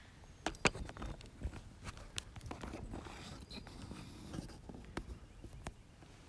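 Irregular footsteps and knocks from a handheld camera being handled and set down on a wooden pew, with a few sharp clicks about half a second and two seconds in.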